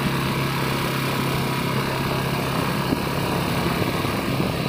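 Small motorcycle engine running steadily as it rides along at low speed.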